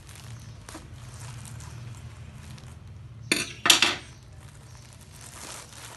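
Clear plastic packaging rustling as a wrapped football shirt is handled on a glass-topped table, with two sharp clinks a little over three seconds in.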